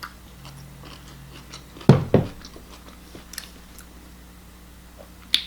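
A person chewing a mouthful of ramen close to the microphone, with small scattered mouth clicks. Two low thumps come about two seconds in, and a sharp click near the end.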